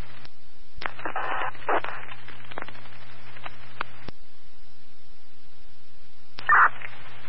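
Fire department radio channel heard through a scanner feed: a steady static hiss over a low hum. It is broken by several sharp clicks of transmitters keying on and off and short garbled bursts of unreadable transmission, about a second in and again near the end.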